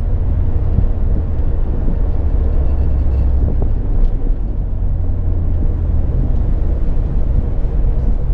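Ford Mustang's engine and tyre noise heard from inside the cabin while driving, a steady low rumble that swells briefly about three seconds in.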